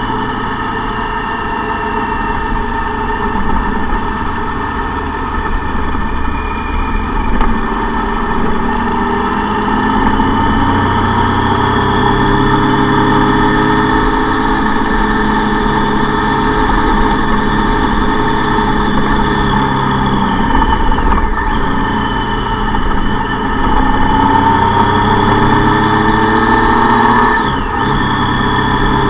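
Motor vehicle engine running steadily while driving along a dirt track, heard from on board, its pitch drifting up and down a little.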